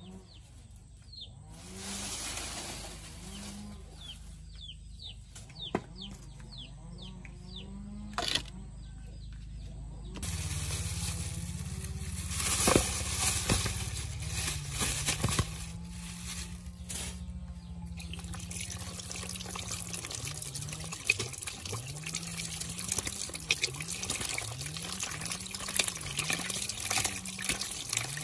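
Water trickling into a plastic basin and splashing as hands wash a basin of freshly caught fish. Earlier, a plastic bag rustles as the fish are tipped into the basin.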